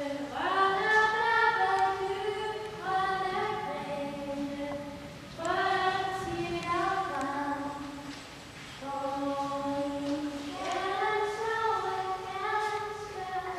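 A choir of young voices singing a slow melody with long held notes, in three phrases separated by short breaks.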